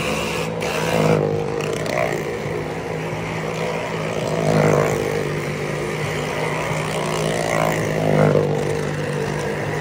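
Vehicle engines of a well-of-death stunt show, running hard as they circle the wall, rising and falling in a swell about every three to four seconds.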